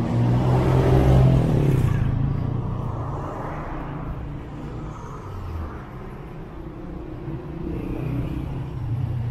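A motor vehicle passes close by on a city street. Its engine note is loudest about a second in and falls in pitch as it moves away, leaving a steady rumble of traffic that swells again near the end.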